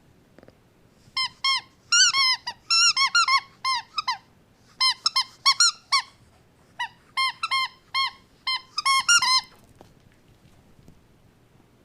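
A rapid run of short, high-pitched squeaks, a couple of dozen in all, each bending up and down in pitch, coming in three quick clusters with brief pauses and stopping a little before ten seconds in.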